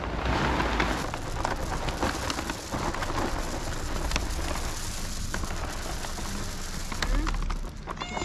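Dry cat kibble pouring out of a paper bag and pattering onto paving stones in a dense stream of small clicks, with the bag rustling.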